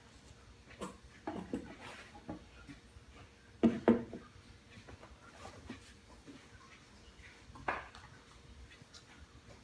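Scattered taps, knocks and rustles of a cardboard box and its packaging being handled as items are lifted out, with two louder knocks in quick succession about four seconds in and another near eight seconds.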